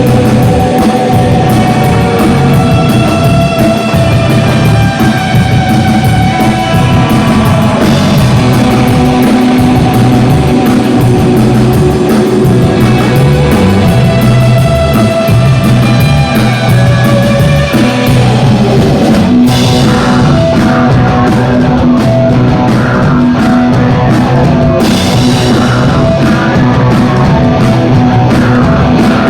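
Loud live band music with a steady drum beat and sustained melody notes.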